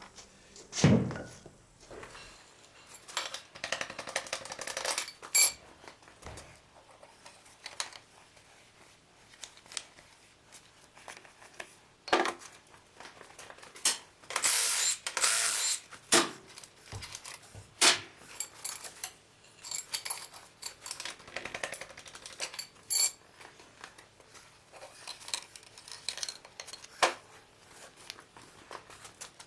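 Metal hand tools and engine parts clinking and knocking during a diesel engine teardown, with a heavy knock about a second in and a noisy rush lasting a second or two about halfway through.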